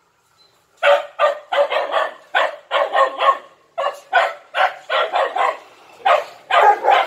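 Dogs barking at a neighbour's dog through the gate in a rapid, unbroken series of sharp barks, about three a second, starting just under a second in.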